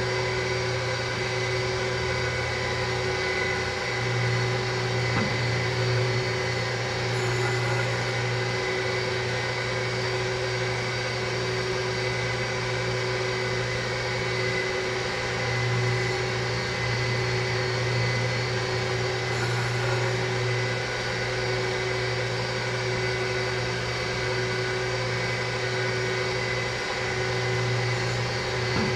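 Surface grinder running steadily, its motor humming and the spinning stone grinding the chuck flat as the table traverses back and forth.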